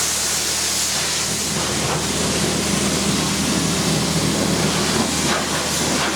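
High-pressure washer wand spraying water in a steady, loud hiss, with the washer's pump motor humming steadily underneath.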